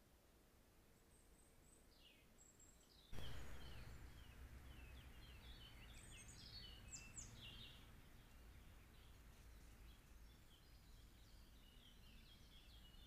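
Faint birdsong: several small birds chirping and twittering. About three seconds in, the background hiss and low rumble jump up suddenly as a new trail-camera recording begins, with the birdsong continuing over it.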